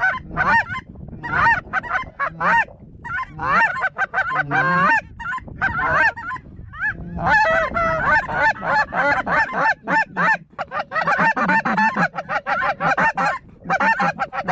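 Snow goose calling: many short, high honks overlapping in a continuous chorus, with brief lulls.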